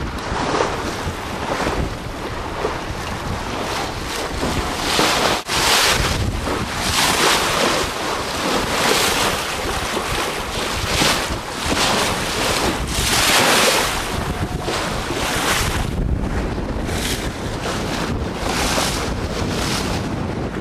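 Water rushing and splashing along the hull of a Neptune 24 sailboat under sail through choppy waves, with wind buffeting the microphone. The hiss swells and falls every second or two as the waves pass.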